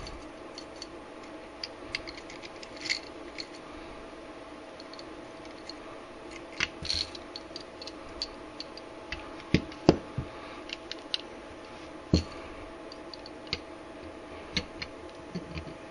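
Small metal clicks, taps and scrapes of 1911 pistol parts being handled and fitted together during reassembly: recoil spring and guide rod, slide and frame. A few sharper clicks come about two-thirds of the way through, over a steady faint background hum.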